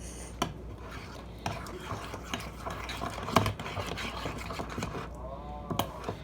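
A spoon stirring and scraping slime in a bowl: irregular sticky scrapes and clicks, with one louder click about three and a half seconds in.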